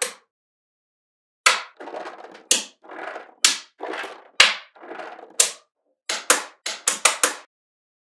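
Small magnetic balls snapping together with sharp clicks, often in quick pairs and triples, starting about a second and a half in. Between the clicks in the middle are softer, longer scraping rattles as the balls roll and shift against each other.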